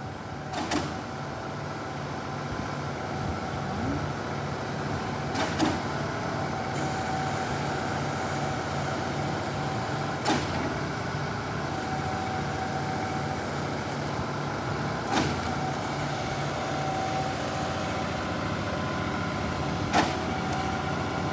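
A heavy vehicle's engine running steadily, with a sharp click about every five seconds.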